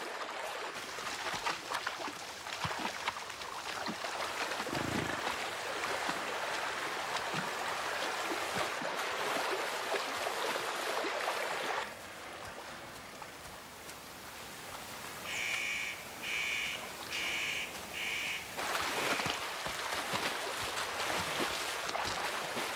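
Bison wading through a shallow river, water splashing and rushing around their legs. About halfway through the splashing drops away and a bird calls four short times, then the splashing of the herd in the water returns.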